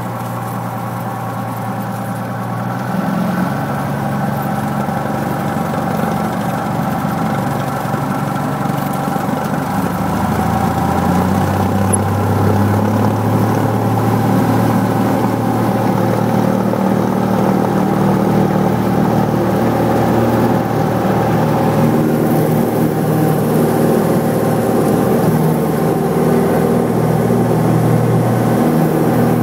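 Light airplane engine running, rising in power about three seconds in and again around ten seconds in, then holding steady at high power for the takeoff.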